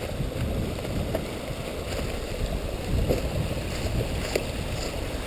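Steady rushing of running water from a stream, with uneven wind rumble on the microphone.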